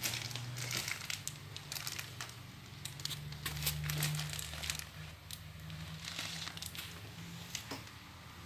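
Clear plastic wrapping film around a ride-on toy crinkling in irregular crackles. A low steady hum runs underneath.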